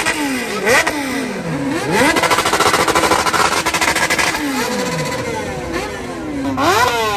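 Big motorcycle engines being revved repeatedly in neutral, more than one at once. The throttle is blipped again and again, each rev climbing quickly in pitch and then falling back.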